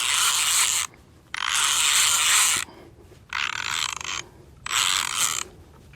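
Fishing reel being cranked in quick bursts, a whirring ratchet-like sound, four turns of a second or so each with short pauses between, as the angler takes up line on a hooked fish swimming towards him.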